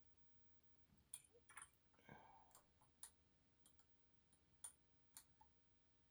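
Faint, irregular metallic clicks of a dimple lock being picked, as the pick works the pins under tension: about ten separate ticks spread over a few seconds.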